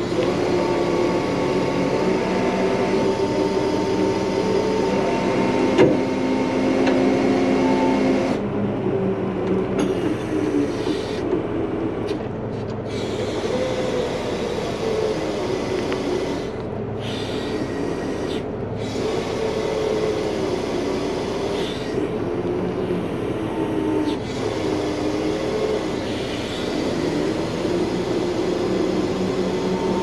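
Heavy wrecker's diesel engine running to drive its hydraulic winches as it drags a backhoe out of the water, a steady drone whose pitch wavers with the load. A single sharp knock about six seconds in.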